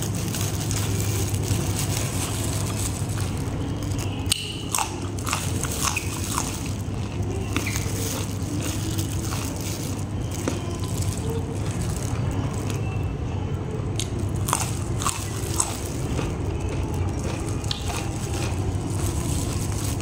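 Crunchy biting and chewing of raw vegetables, yardlong bean pods among them, with scattered crisp snaps and crunches, over a steady low hum.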